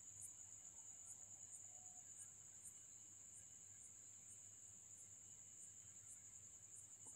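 Faint cricket chorus: a steady high-pitched trill with short chirps about twice a second.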